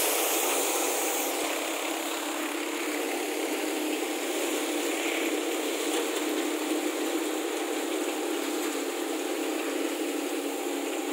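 Vardhman threshing machine running steadily, driven by a Mahindra 275 DI tractor: an even, constant machine noise with a faint hum.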